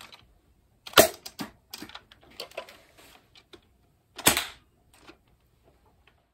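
Buzzbee Big Blast air-powered foam blaster being fired: a sharp, loud blast about a second in, then a few smaller knocks and rattles, and a second loud blast a little after four seconds.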